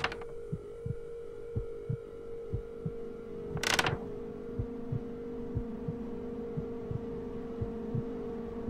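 Horror-film sound design: a slow heartbeat, double thumps about once a second, under a steady low drone that thickens with a second tone about three seconds in. A short hissing burst cuts through about three and a half seconds in.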